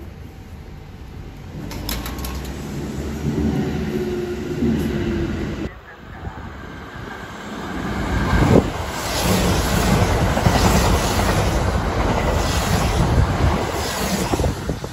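Kintetsu limited express electric train passing through the station at speed without stopping: a rising rush as it approaches, a sharp thud as the front goes by, then the wheels clattering over the rail joints in a steady rhythm.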